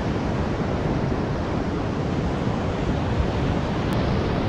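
Wind buffeting the camera microphone over the steady wash of surf on a beach.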